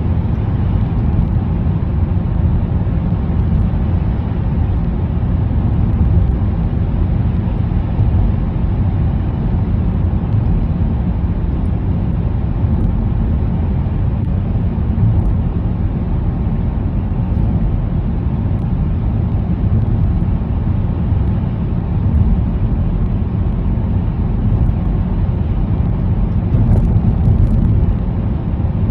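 Steady low rumble of a car driving through a road tunnel, heard from inside the cabin: tyre and engine noise at a constant speed.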